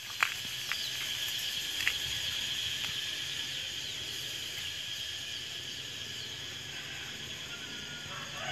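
A steady high-pitched insect chorus, with a few sharp clicks in the first three seconds, the loudest just after the start.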